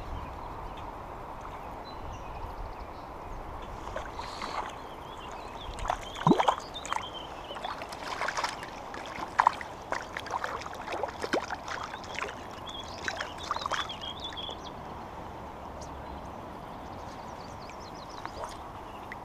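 A small hooked trout splashing at the surface as it is drawn in by hand on a fly line, a run of sharp splashes between about four and fifteen seconds in, the loudest two around six and nine seconds. Under it, the steady rush of the river.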